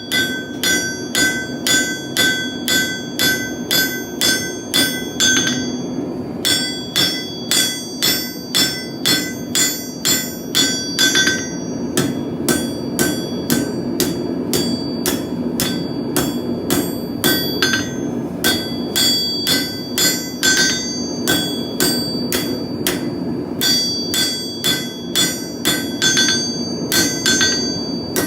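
Hand hammer striking hot steel on an anvil, each blow ringing out, at a steady pace of about two to three blows a second. There are brief pauses between runs of blows. A steady low rushing noise runs underneath.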